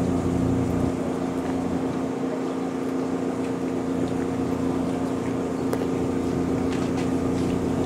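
An engine idling steadily, giving a constant, even drone.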